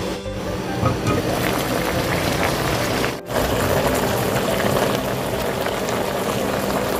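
Soy and chili-pepper braising broth of tofu and zucchini bubbling steadily at a simmer in a pot. It breaks off for an instant about three seconds in, then carries on.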